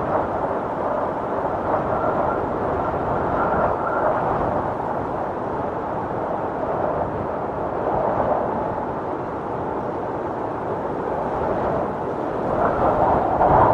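Storm wind blowing hard and steadily in gusts, with a faint thin whistle for the first few seconds, swelling into a stronger gust near the end.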